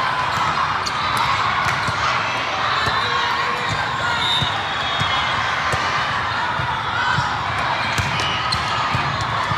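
Volleyball rally: the ball struck again and again in digs, sets and attacks, short sharp hits over a steady background of crowd and player voices.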